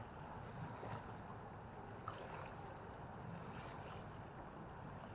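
Wind and water lapping against the bank, a low steady hiss, with a faint click about two seconds in and a few softer ticks.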